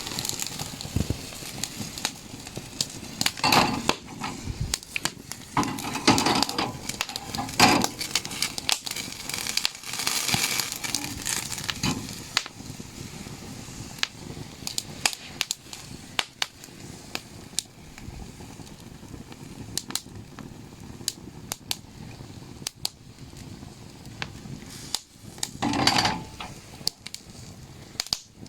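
Campfire crackling with many sharp pops and snaps, broken several times by louder rustling and knocking of wood or gear being handled.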